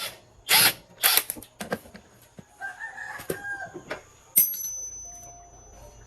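A rooster crowing in the background, one bending call lasting under a second. Several loud, sharp knocks or scrapes come about half a second apart before it, and a few more follow.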